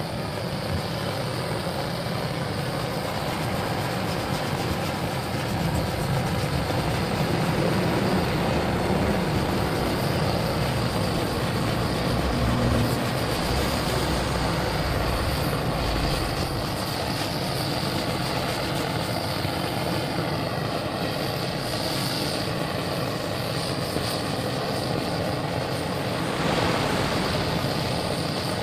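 Hose-fed LPG gas torch burning with a steady rushing noise, its flame heating thick body filler and paint on a steel fuel tank to soften them for scraping off.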